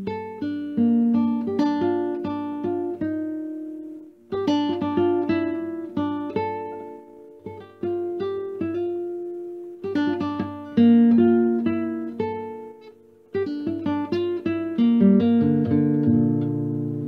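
Background music on a plucked acoustic guitar: picked notes and chords that ring out and fade, played in short phrases with brief pauses between them.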